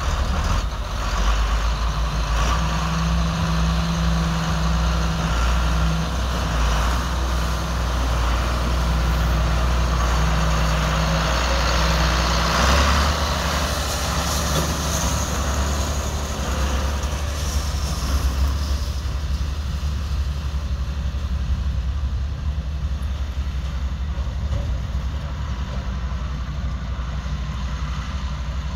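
John Deere 4855 tractor's turbocharged six-cylinder diesel running steadily under load while its grain cart's auger unloads grain. The engine note shifts about halfway through.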